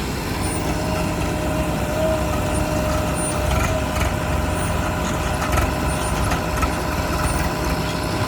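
Diesel engines of a backhoe loader and tractors running steadily: a low engine rumble with a steady whine above it.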